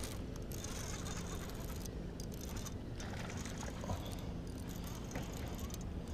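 Steady low background rumble with a few faint soft clicks from a baitcasting reel as a hooked bass is played on a bent rod.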